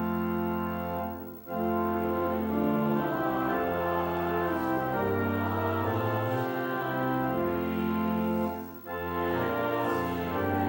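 Church organ playing slow, sustained chords, with two brief breaks between phrases, about one and a half and nine seconds in.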